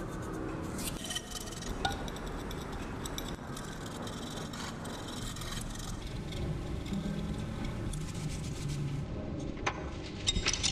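A small hand tool scraping and tapping lightly on a glazed ceramic bowl, with scattered small clicks. Near the end there are a few sharper knocks as the bowl is handled.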